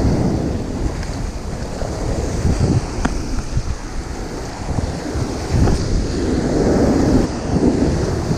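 Wind buffeting the microphone over the steady wash of ocean surf, swelling and easing in gusts.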